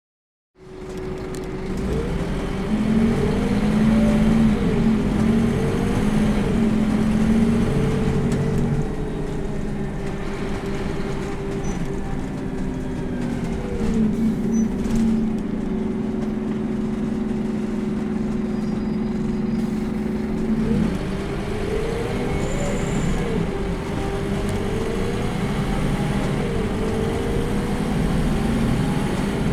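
Onboard sound of a Scania K230UB city bus's 8.9-litre Scania DC9 diesel engine and 5-speed ZF Ecomat automatic gearbox as the bus drives: the engine note rises and drops again several times as it pulls through the gears. A steady whine runs underneath.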